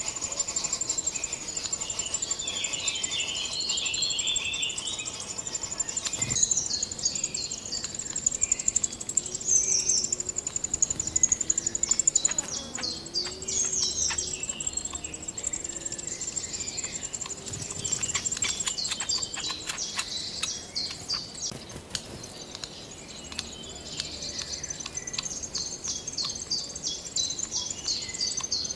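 High-pitched bird chirps in quick runs, stronger in several stretches, over a steady high insect buzz.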